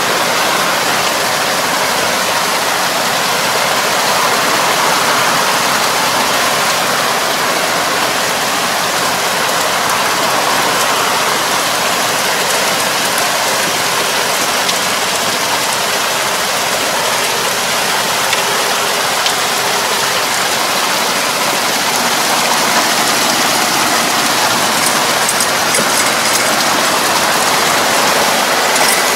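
A tractor-mounted drive harrow puddling a flooded rice paddy: a steady rush of churned, splashing water and mud, with the tractor's engine running underneath.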